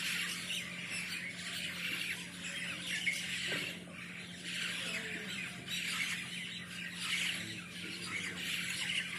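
A flock of birds calling together while feeding on the ground, many overlapping calls swelling and easing every second or two, over a steady low hum.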